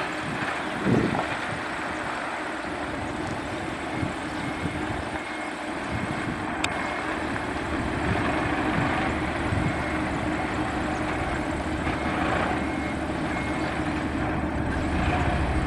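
Loaded dump truck's diesel engine running at low speed as the truck moves slowly along a dirt road.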